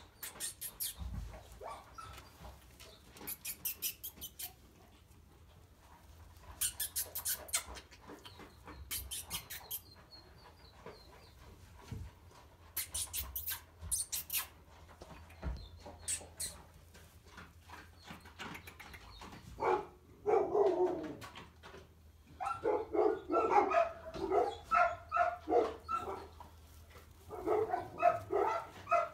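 Litter of three-week-old puppies whimpering and squealing in repeated bursts from about two-thirds of the way in. Earlier, scattered crackling from the puppies scuffling in the straw bedding.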